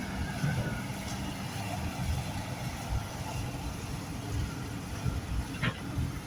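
Diesel engine of a working loader running steadily, with one short knock near the end.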